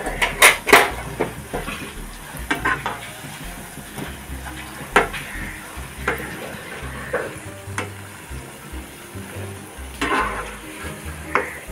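Lentil-batter vadas sizzling as they deep-fry in hot oil in a pan. A metal slotted spatula clicks against the pan as they are turned, most sharply in the first second and again around five and ten seconds in.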